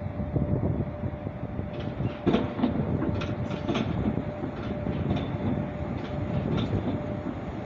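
Freight train headed by a Finnish Sr1 electric locomotive approaching: a low rumble with a steady hum. From about two seconds in comes a run of sharp clicks as the wheels pass over rail joints.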